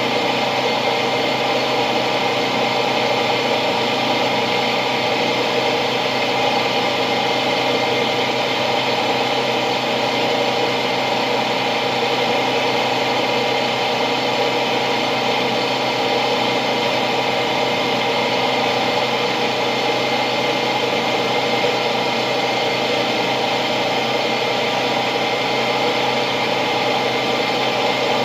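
A steady mechanical drone with several constant hum tones and no change in level.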